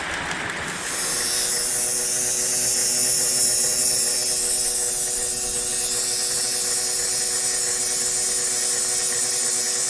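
Marx O gauge switcher locomotive's electric motor and gearing running with a steady whine, picking up about a second in. The motor has just had a drop of oil on top and runs smoothly.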